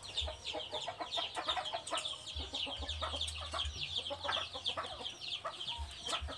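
Many small birds chirping, a dense, continuous run of short, high, falling chirps, with a low rumble that comes and goes underneath.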